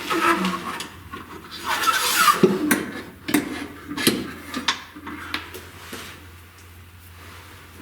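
Metal kill-switch bar being handled and set in place: a string of clinks, knocks and rubbing scrapes, busiest in the first few seconds and thinning out toward the end, over a steady low hum.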